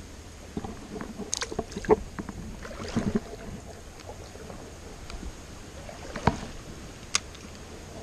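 Handling noise and water splashes as a small chub is unhooked and let back into a shallow river, with a few sharp clicks and knocks scattered through, the loudest near the end.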